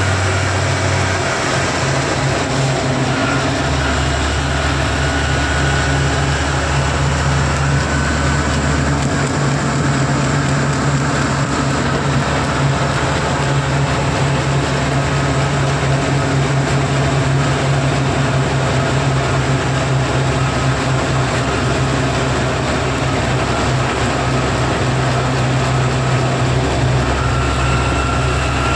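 Mobile crane's diesel engine droning steadily with road and wind noise, heard from inside the cab while driving at highway speed.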